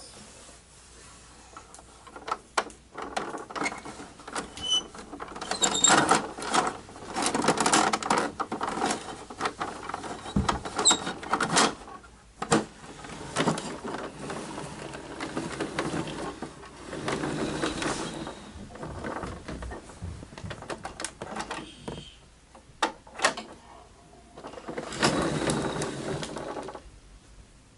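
Plastic toy rear-loader garbage truck being handled: clicks and rattling of its plastic bin lifter and parts, and rattling as it rolls across a hardwood floor, in several bursts.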